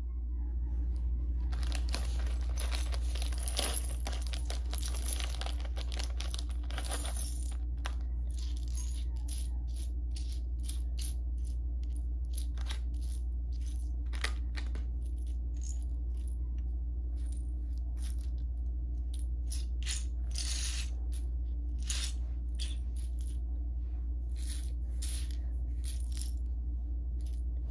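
Loose plastic Lego bricks clicking and rattling against each other as a hand rummages through a pile of pieces on a wooden floor, many short clicks, busiest in the first several seconds. A steady low hum runs underneath.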